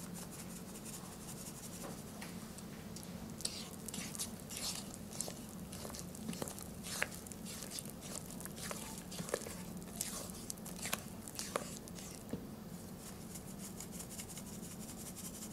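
Spatula folding cocoa powder into cake batter in a bowl: faint, irregular soft scrapes and small wet clicks, over a low steady hum.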